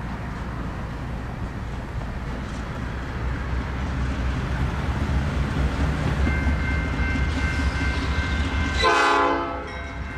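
Norfolk Southern GE diesel locomotive, a DC-to-AC conversion, rumbling at idle and then throttling up, with a steady high whine coming in partway through. A short horn blast of about a second sounds near the end.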